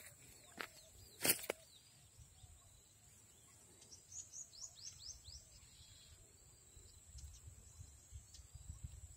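A couple of footsteps thud on dry field soil in the first second and a half. A few seconds in, a bird gives a run of short, quick falling chirps, over a faint low rumble.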